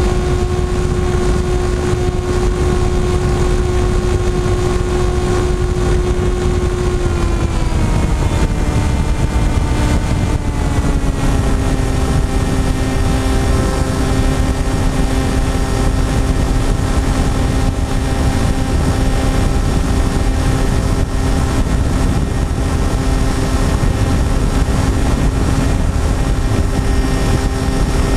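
Motor and propeller of an FPV model aircraft running steadily, picked up by the onboard camera with wind rushing over the microphone. The motor's whine steps down in pitch about seven to eleven seconds in, then holds at the lower pitch.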